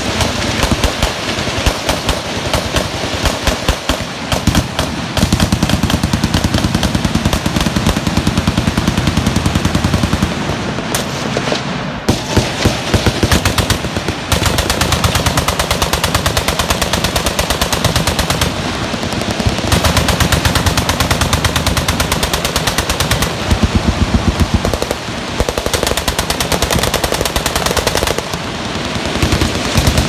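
Machine guns firing fully automatic in a continuous barrage, bursts overlapping one another without a break.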